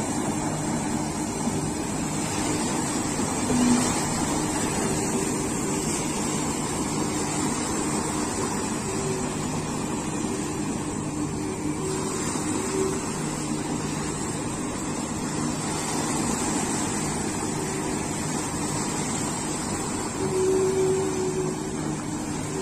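Komatsu PC200 excavator's diesel engine running with a steady hum as the machine tracks through shallow seawater, with waves washing against the rocks. There are short louder blips about four seconds in and again near the end.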